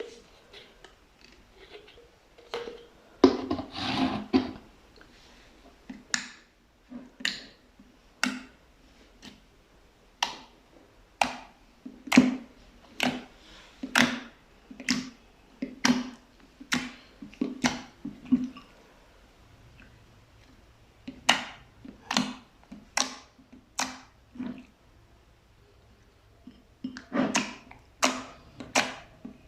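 Fluffy slime being pressed and squeezed by hand, giving a series of sharp, wet pops about one a second as trapped air pockets burst. A longer squishing stretch about three seconds in, and a quick run of pops near the end.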